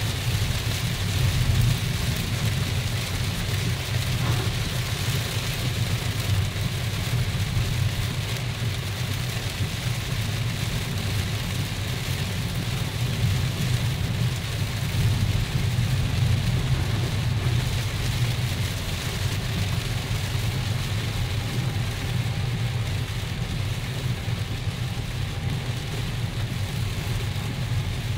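Heavy rain falling on a car and the steady low rumble of the car driving on a flooded, wet road, heard from inside the cabin.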